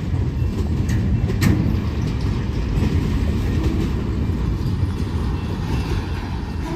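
Union Pacific freight train's last boxcars rolling past: a steady low rumble of steel wheels on rail, with a couple of sharp clacks in the first two seconds.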